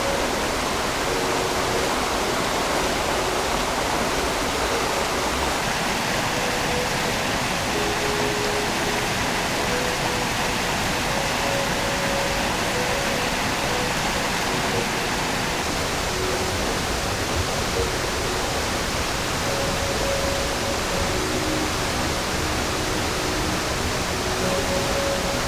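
Mountain stream rushing steadily over rocks and small rapids, a constant even rush of water.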